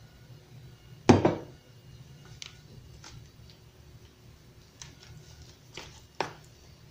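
A sharp knock about a second in, then scattered soft taps and clicks as a hand mixes masa harina with warm water in a plastic container.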